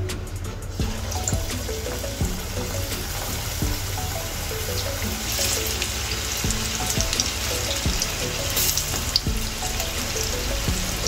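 Potato snacks deep-frying in hot oil in a kadai, a steady bubbling sizzle that grows louder about five seconds in, under light background music.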